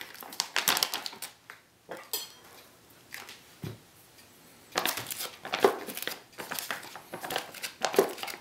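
Foil-lined food pouch crinkling and rustling as its zip seal is pulled open and the pouch is handled, in two spells with a quieter pause of a few seconds between.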